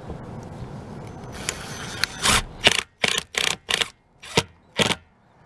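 Cordless screw gun driving a #14 self-tapping metal roofing screw through an aluminium bracket foot into the RV roof. It runs steadily at first, then goes in a quick series of about seven short, loud bursts as the screw is snugged down.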